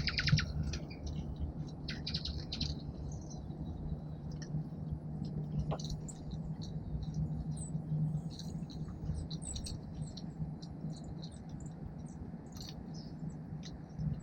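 Small songbirds at a backyard feeder calling: a rapid buzzy chatter right at the start and again about two seconds in, then scattered short, high chips through the rest.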